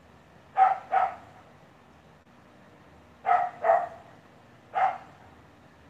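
Old English Bulldog barking: five loud barks, two quick pairs and then a single one.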